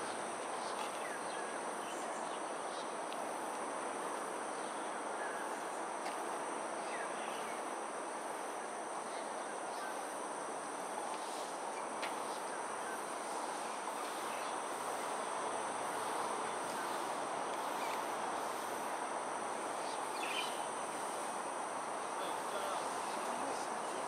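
Crickets and other insects trilling in a continuous high-pitched drone over a steady background hum, with a few faint bird chirps.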